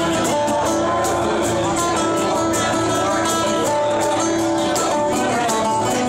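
Live band playing: a plugged-in acoustic guitar strummed over drums, with a steady run of cymbal strokes keeping the beat.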